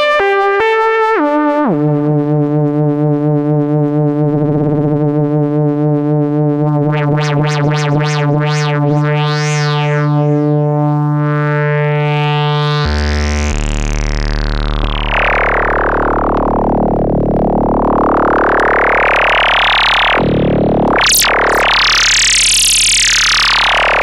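Kawai S-100F monophonic analog synthesizer playing a few short notes, then a held low note whose tone is swept and wobbled by modulation. About halfway through it drops to a very low drone, with a bright tone gliding up and down in wide sweeps above it.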